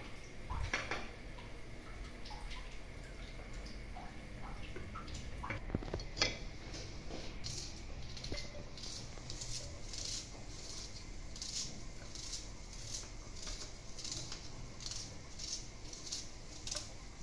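Kitchen knife slicing through a red onion held in the hand, a short crisp cut about twice a second through the second half. Before that come a few light knocks and clinks of dishes being set down on the counter.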